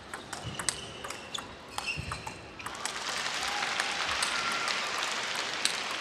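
Table tennis ball clicking off bats and table in a knock-up rally, at an irregular pace. About halfway through, a steady rushing noise from the hall rises underneath the clicks.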